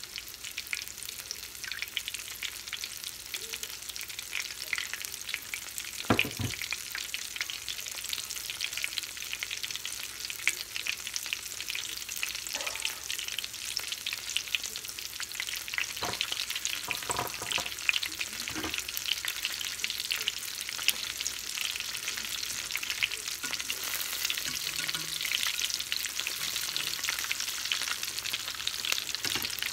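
Panko-breaded mozzarella corn dogs deep-frying in hot oil in a cast-iron skillet: a steady, dense crackle and sizzle, with a few sharper clicks scattered through it.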